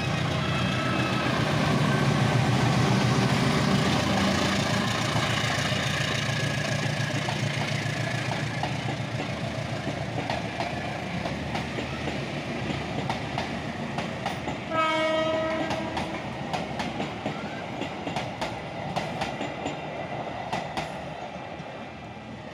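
Diesel-electric locomotive under full power, pulling a passenger train away up a rising grade: the engine's loud, deep running is strongest at first and slowly fades as the coaches roll past with wheels clacking over the rail joints. About two-thirds of the way through, one short horn blast sounds.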